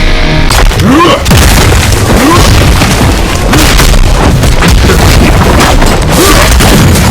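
Loud, heavily distorted boom and explosion sound effects layered over music, with short rising squeaky glides breaking through four times. The audio is pushed to the point of clipping and cuts off suddenly at the end.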